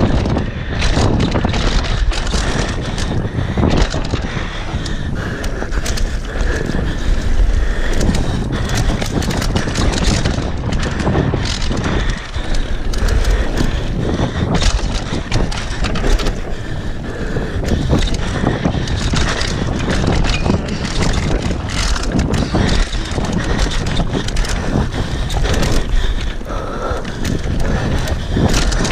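Downhill mountain bike ridden fast over a dirt trail: wind buffeting the microphone and the tyres on dirt run throughout, with frequent rattling knocks as the bike hits roots and bumps.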